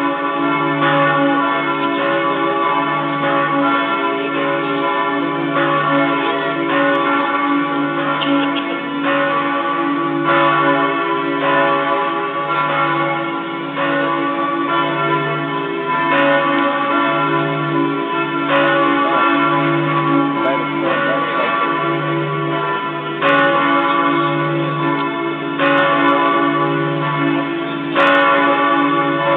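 Several large church bells ringing together in a full, continuous peal, the deepest bell sounding a little more than once a second under the overlapping strokes of the others. This is festive ringing for a solemn service.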